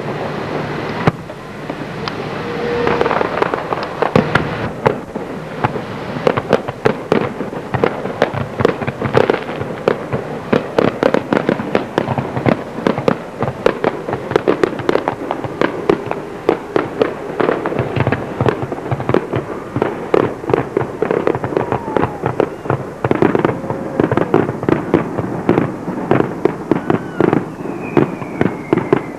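Aerial fireworks display: a dense, continuous barrage of shell bursts, many bangs and crackles every second, with a few falling whistling tones near the end.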